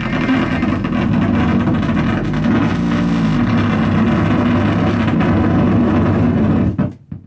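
Loud electronic noise music from synthesizers and effects pedals: a dense low drone of stacked, shifting tones under a wash of hiss, cutting off abruptly just before the end.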